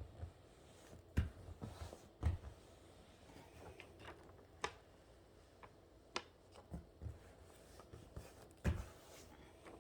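Scattered handling sounds: light rustles and a few sharp taps as a self-adhesive leather repair patch and its paper backing are handled and pressed onto a leather sofa. The sharpest taps come about a second in, about two seconds in and near the end.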